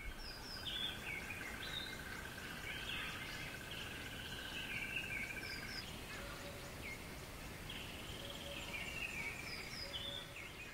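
Faint outdoor ambience of birds chirping and calling over a steady background hiss, with a steady high-pitched hum that stops about halfway through.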